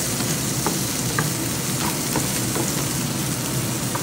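Diced carrots, corn and meat sizzling in oil in a frying pan while a wooden spatula stirs them, with light scrapes and ticks of the spatula against the pan.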